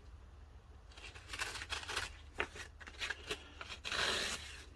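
A sheet of sandpaper being torn by hand into quarters: a run of short rasping rips starting about a second in, with one longer rip near the end.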